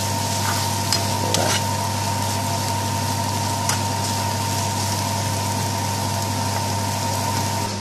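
Mushrooms and onions sizzling in a non-stick frying pan as they are stirred with a metal utensil, with a few light clicks of the utensil against the pan, over a steady low hum.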